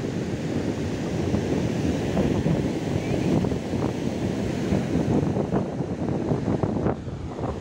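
Sea surf washing in shallow foam around the ankles, a steady rushing of water, with wind buffeting the microphone.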